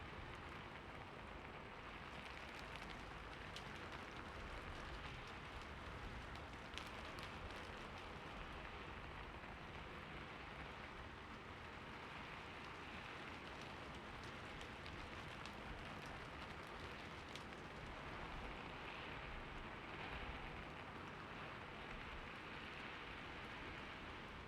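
Steady rain falling, a soft even hiss with now and then the sharp tick of a single drop close by.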